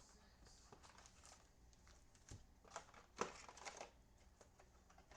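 Faint crinkling and crackling of plastic wrapping with small handling clicks as a trading-card hobby box and its packs are opened, with a cluster of louder crackles a little past the middle.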